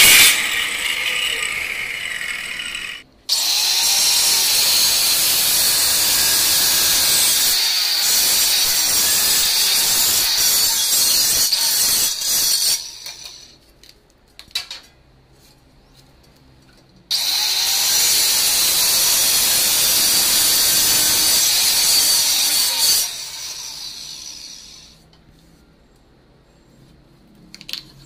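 Handheld electric tile cutter running and cutting a stone-look ceramic wall tile, with a steady high whine. It stops briefly about three seconds in, runs again for about ten seconds, falls quiet for about four seconds, then runs for about six more seconds and winds down.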